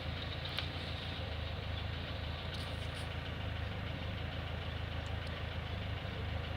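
Car engine idling steadily with a low, even hum, which the owner puts down to the alternator (генератор) working under electrical load at idle.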